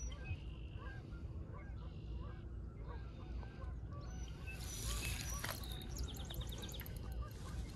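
A flock of geese honking, many overlapping calls without a break. About five to six seconds in comes a quick run of clicks from the spinning reel as the fish is played.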